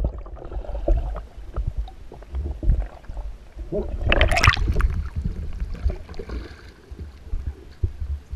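Water around a kayak during a capsize and storm roll, heard through a deck camera that is underwater: a muffled gurgling rumble with scattered knocks, then a loud splashing rush about four seconds in as the kayak rolls back upright, followed by quieter water washing over the deck.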